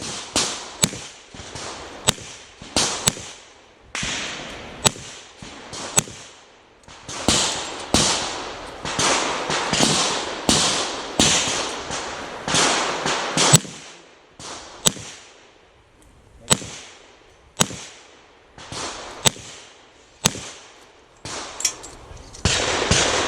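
A string of shots from a .40-calibre Chiappa Rhino revolver, fired about once a second with a few short pauses. Each shot trails off in an echoing tail.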